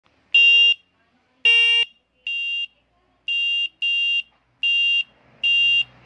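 Handlebar-mounted electric bicycle horn sounding seven short, high-pitched electronic beeps in a row, each under half a second, the first two louder than the rest.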